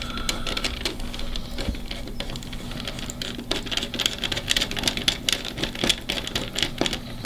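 Irregular light clicking and scraping of a screwdriver tightening a small terminal screw down onto a looped power wire.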